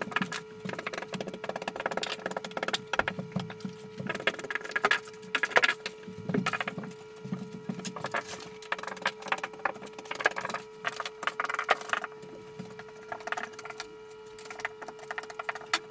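Plastic tile-leveling clips being snapped off a large porcelain tile floor: a rapid, irregular series of sharp clicks and snaps, over a steady hum.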